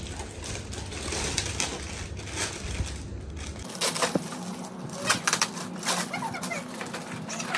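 Clear plastic packaging bag crinkling and rustling as plastic toy bunk-bed pieces are pulled out of it, with sharp crackles and light clacks of the plastic parts coming thick from about four seconds in.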